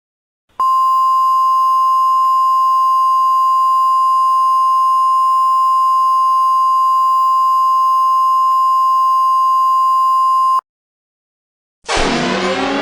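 A steady single-pitched electronic alert tone near 1 kHz, as used to open an emergency alert broadcast, sounds for about ten seconds and cuts off sharply. About a second before the end, a loud siren-like sound with many falling pitches starts.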